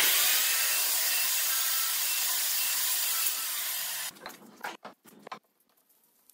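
A steady, rough rubbing noise against wood that starts abruptly and holds for about four seconds. A few short scratches follow before it stops.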